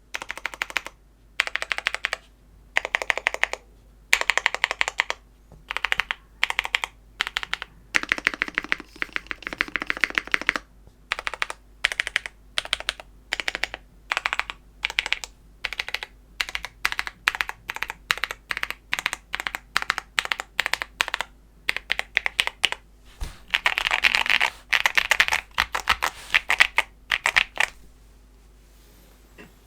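Typing on a KBDFans Tofu65 aluminium mechanical keyboard fitted with lubed Tecsee Purple Panda tactile switches, lubed Everglide stabilizers and doubleshot PBT keycaps, with foam, tempest, burger and o-ring mods. The keystrokes come in short bursts with brief pauses between them and stop about two seconds before the end.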